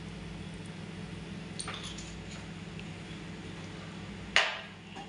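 Kitchen clatter over a steady low hum: a light tick after about a second and a half, then one sharp clink with a short ring near the end as a hard object is knocked or set down.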